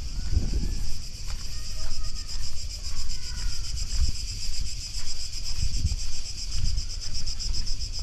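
Steady, shrill chorus of cicadas with a fast pulsing buzz, over low thuds of footsteps and wind buffeting the microphone about once a second.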